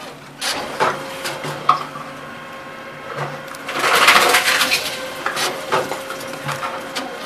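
Tomra T-63 reverse vending machine taking in an empty plastic bottle: a few clicks and knocks as the bottle is pushed into the round intake, then a loud rustling rush about four seconds in and a steady motor hum as the machine takes the bottle in.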